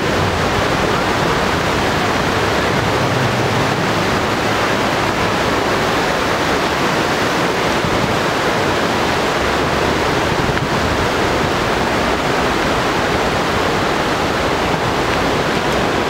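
River rapids: a fast, swollen, muddy river rushing over rocks and around a small island, making a loud, steady rushing of water.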